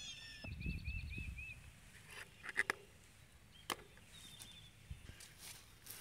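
Low rustling steps on grass, then a few sharp clicks as an electric-fence hand gate's handle is hooked back on at the post to restore power to the fence. A short run of high chirps near the start.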